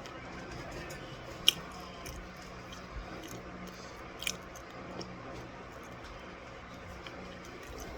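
Chewing a mouthful of raw cornstarch: soft, squishy crunching, with a couple of sharp clicks.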